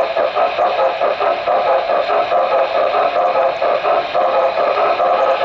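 HO-scale model train running along the track, heard from on board: a steady mechanical hum from the motor and gearing, with a rapid, irregular clicking of wheels over the rails.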